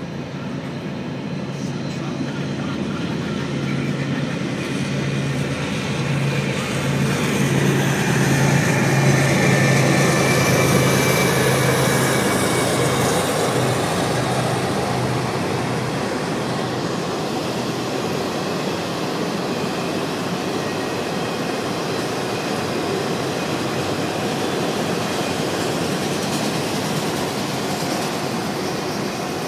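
Diesel locomotives of a freight train approach and pass, their engine drone building to its loudest about ten seconds in. The steady rolling noise of empty autorack cars going by on the rails follows.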